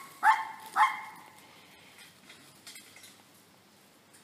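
Small dog barking twice in quick succession, two sharp, high-pitched yaps about half a second apart in the first second: play barking.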